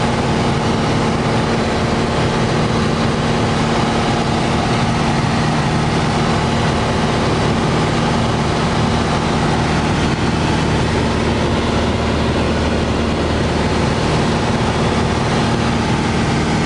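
Piper PA-28-161 Warrior's four-cylinder Lycoming engine and propeller at take-off power, a loud, steady drone heard from inside the cabin during the take-off and climb-out.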